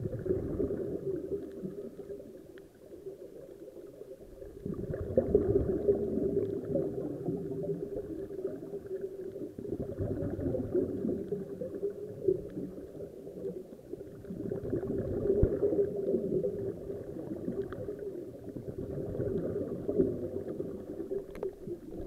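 Scuba divers' regulator exhaust bubbling underwater, swelling in bursts about every five seconds with each exhalation; muffled, with little high-pitched sound.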